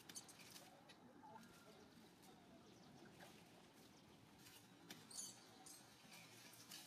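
Faint, short high squeaks from a young macaque monkey, with light scuffling and clicks in dry leaves and gravel as the monkeys tussle. The clearest squeaks come about two thirds of the way through.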